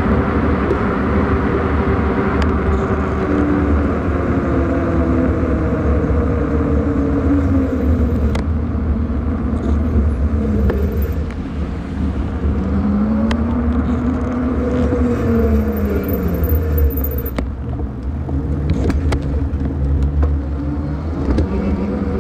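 Heavy wind rush and rumble on a bike-mounted camera's microphone while cycling along a road, with a motor hum that glides slowly up and down in pitch.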